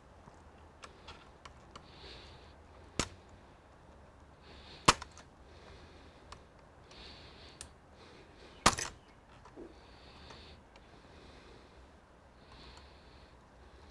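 Three sharp clicks a few seconds apart, with fainter ticks and light rustling between them: parts and tools being handled while an all-in-one computer is taken apart.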